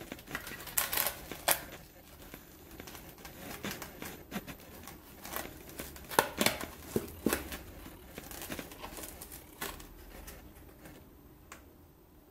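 Handling noise from a plastic FPV monitor as its folding sunshade hood is opened out: irregular clicks and snaps with crinkling and rustling, busiest in the first half and quieter near the end.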